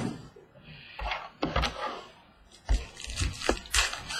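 A sealed trading card box and its card packs being handled and opened on a table: a series of sharp cracks, rustles and knocks.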